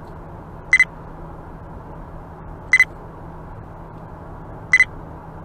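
Short electronic double beeps, three of them evenly about two seconds apart, over the steady hum of a car driving along.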